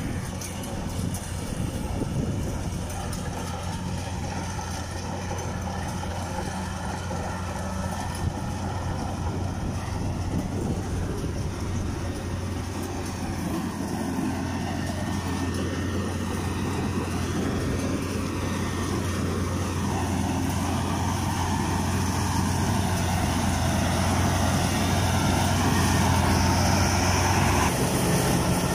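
Kubota rice combine harvester's diesel engine running steadily under load as it cuts rice, with a constant low hum that grows gradually louder toward the end.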